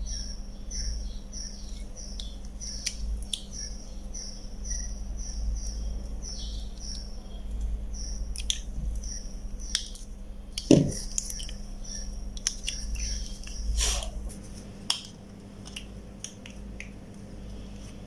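Small plastic clicks and taps as the two halves of a car remote key fob's shell are fitted and pressed shut, with one louder thump near the middle.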